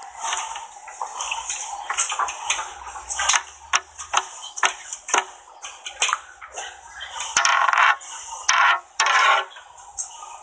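Phone recording of a band classroom between pieces: scattered clicks and knocks from instruments and gear being handled, with short bursts of voices near the end, under a steady high hiss. No music is being played.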